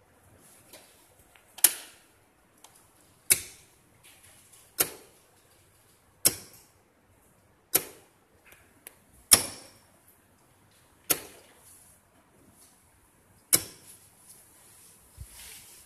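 Eight sharp clicks, about one every one and a half seconds, each with a short ringing tail: a repaired custom chuck-control DC power supply being switched on and off under test.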